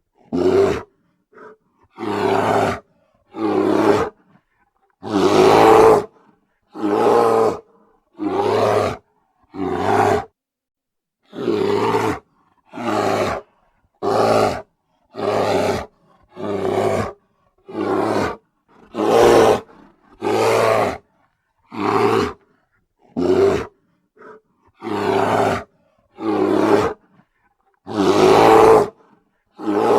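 Bear roaring again and again: about twenty short roars, each half a second to a second long, separated by brief silences, a few of them longer and louder than the rest.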